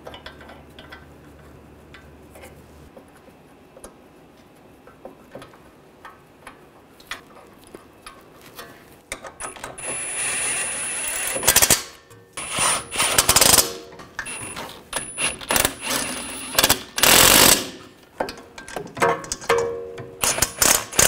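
Cordless brushless impact wrench hammering in bursts, one longer run about halfway through and then several short ones, as it runs down the bolts holding a new front wheel bearing and hub assembly to the steering knuckle. Before it, faint clicks of the bolts being handled.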